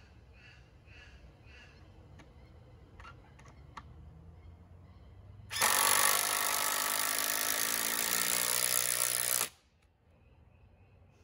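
Cordless drill running under load into the timber rail and post for about four seconds, starting about halfway in and cutting off sharply. A few faint clicks of handling come before it.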